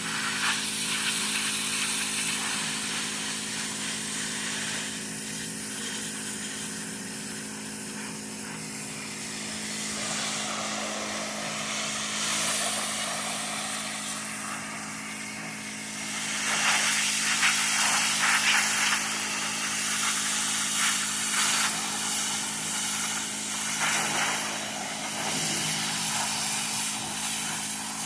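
Pressure washer running: a steady engine hum under the hiss of the water spray, which grows louder and rougher from about halfway through.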